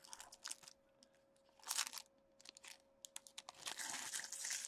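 Foil trading-card pack wrapper crinkling and tearing as hands pull it open: scattered crinkles, a short louder burst near two seconds in, and a longer stretch of crinkling near the end.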